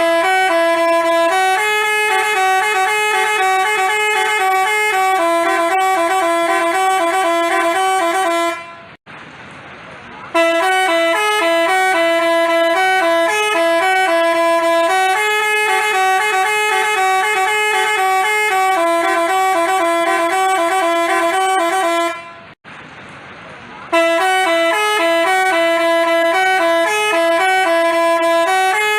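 Basuri telolet multi-tone bus horn playing a repeating melody of quick stepped notes. It breaks off twice for about a second and a half.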